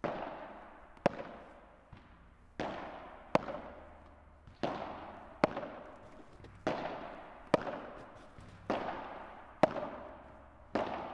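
Padel ball struck again and again by rackets at slow pace, about one hit a second, each crack trailing off in a long echo.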